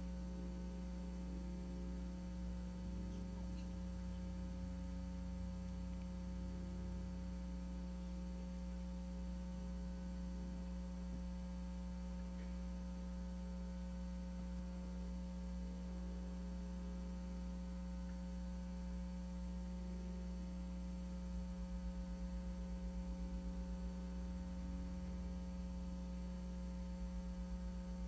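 Steady electrical mains hum from the sound system, a constant low buzz with no other sound standing out.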